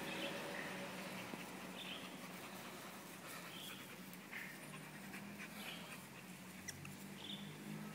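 A pit bull panting, with about six short high squeaks spread through.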